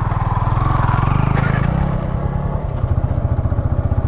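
Motorcycle engine running close to the microphone, its exhaust pulsing in an even, steady rhythm.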